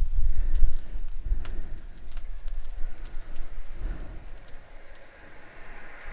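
Beef rib steak searing on a barrel grill over intense heat: a steady sizzle with scattered sharp pops and crackles of spitting fat, and a low rumble in the first second or so.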